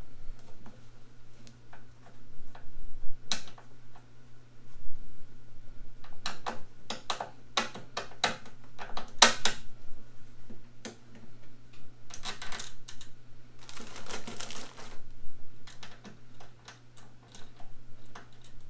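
Small steel bolts, washers and nuts clicking and clinking against a caster's metal mounting plate and the steel cart panel as they are fitted by hand, in scattered sharp taps with a couple of denser spells of clatter past the middle. A steady low hum runs underneath.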